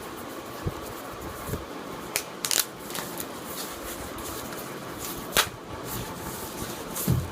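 Handling noises: soft rustling and a few sharp clicks, the loudest about five and a half seconds in, over a steady background hiss.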